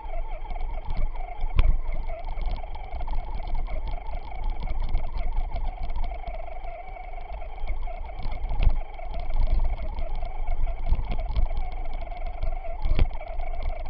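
Electric motor and drivetrain of a Traxxas Stampede 2WD RC truck whining as it drives through snow, the pitch wavering with throttle, heard from a camera mounted on the truck. Low rumble and several hard thumps run under it as the chassis bounces over the ruts, the loudest about one and a half, eight and a half and thirteen seconds in.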